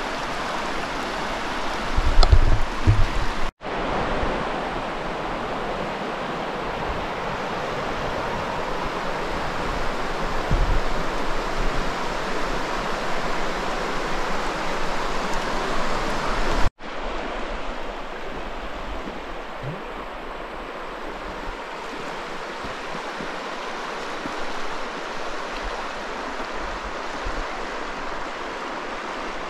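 Rushing river water, a steady wash of noise, with a few low thumps about two seconds in. The sound cuts out for an instant twice.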